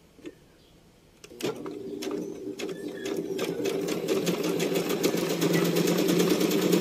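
Pandora House electric sewing machine starting to stitch about a second and a half in, sewing one of its pattern stitches. The needle strokes quicken and the sound grows louder as it runs.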